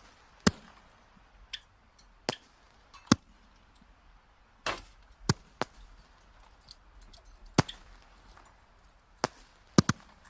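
Burning firewood crackling, with sharp pops at irregular intervals and quiet between them.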